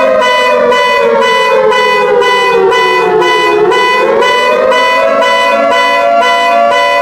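Synthesized EAS-style emergency alarm: stacked electronic tones pulsing about twice a second. Over them, a siren-like tone slides slowly down in pitch and then rises again from about halfway through.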